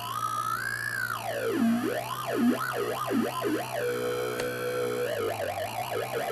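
Synthesizer notes from the 'Funk Voxbox bass' preset of the ROLI Noise app, played through a small Bluetooth speaker. The pitch glides up, then swoops down and up in wide slides, holds one steady note briefly about four seconds in, and wavers in quicker swoops near the end.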